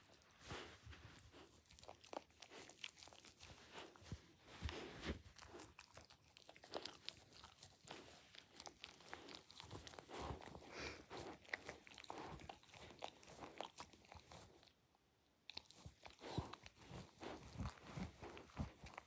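A dachshund chewing and gnawing a plush soft toy: irregular soft crunches and wet mouthing of teeth working the corduroy fabric and stuffing, with a brief pause about fifteen seconds in.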